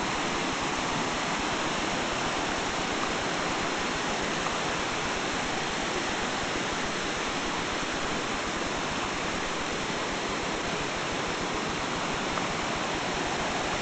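Steady rushing of a mountain stream tumbling over rocks: a continuous, even wash of water noise.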